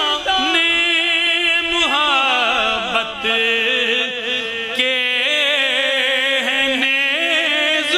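A man chanting a line of Urdu devotional verse (a manqabat in praise of the Prophet's household) in a sung, melismatic style, with long held notes that waver and glide between pitches.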